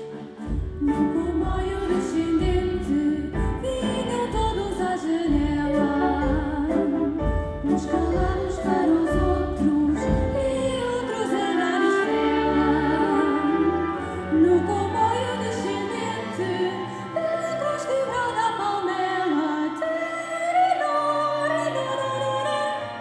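Live ensemble music with singing over strings and timpani. A low pulsing beat drives the first half and drops out about halfway, leaving held low notes under the voices.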